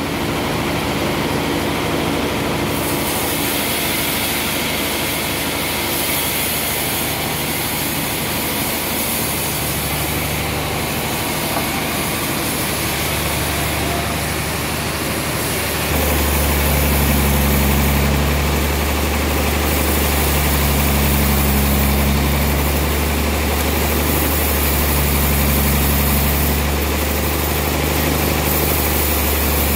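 Sawmill machinery running with a steady engine-like drone. About halfway through, a deeper, louder hum comes in and swells and eases in a slow pulse every few seconds.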